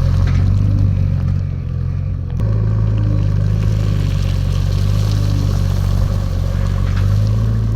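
JCB 3DX backhoe loader's diesel engine running loud and steady, easing off slightly and picking up again about two and a half seconds in.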